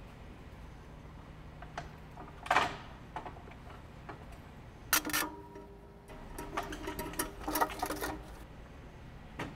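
Collapsible aluminium scissor ladder being folded shut and stowed. A clack about two and a half seconds in, a sharp clank near five seconds, then a run of quick ringing metal clinks as the rungs knock together, and one last click near the end.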